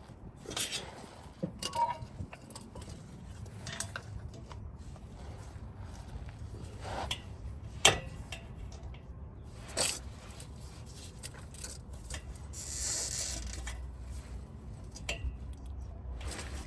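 Metal tools and exhaust hardware clinking and scraping in scattered knocks during work on a car's exhaust pipes, with one sharper knock about eight seconds in and a short rushing noise about thirteen seconds in.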